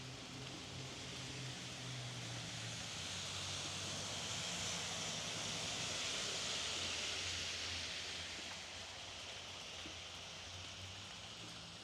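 Steady rainfall in a quiet street, with a tyre hiss from a vehicle passing on the wet road that swells to a peak about halfway through and fades away.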